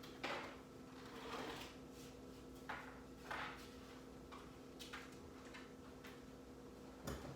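Brief rubs and knocks of objects being handled, roughly one a second, with a sharper knock near the end, over a faint steady hum.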